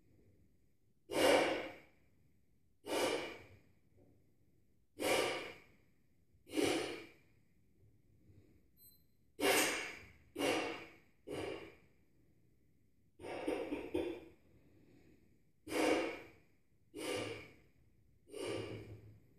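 A person blowing hard breaths into a rubber balloon to inflate it, about eleven strong puffs at uneven intervals, each starting sharply and fading away, with quiet pauses between.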